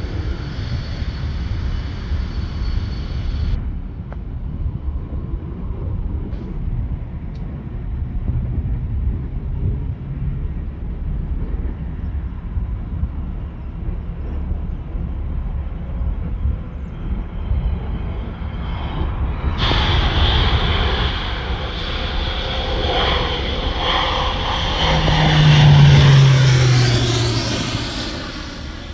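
Agricultural crop-duster airplane's engine and propeller running as it flies spraying passes. Late on it passes close overhead, growing loud with a falling pitch as it goes by, then fading.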